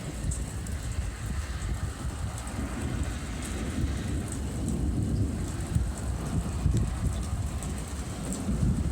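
Thunder rumbling low and rolling, growing louder through the middle and easing off again, with rain in the background.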